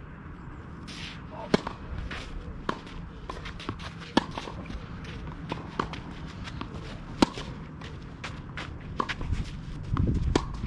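A tennis rally on a clay court: racket strikes on the ball come about every one and a half seconds, alternating louder and fainter, with ball bounces and shoe scuffs on the clay in between.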